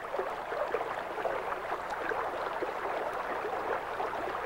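Faint steady underwater ambience: a soft watery burble with a fine crackle.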